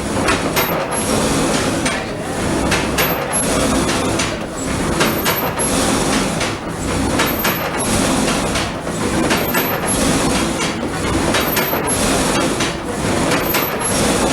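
Wind-driven sawmill machinery running: the frame saw and its gearing clatter steadily, with a regular repeating knock.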